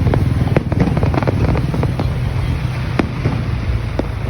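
Fireworks going off, with scattered sharp pops and bangs, over a loud steady low rumble.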